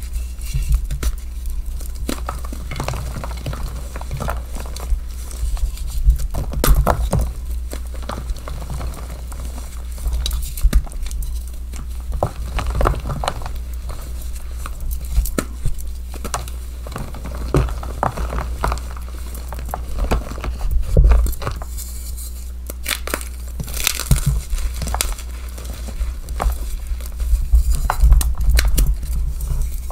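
Soft blocks of dyed gym chalk squeezed, rubbed and crumbled between the fingers: irregular dry crunches and crumbling, with a steady low hum underneath.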